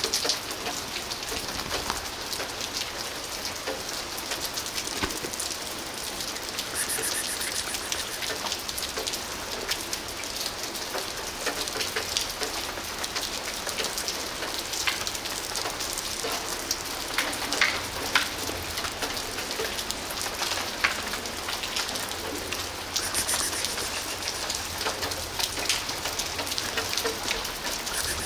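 Steady rain falling, with many single drops ticking sharply among the hiss.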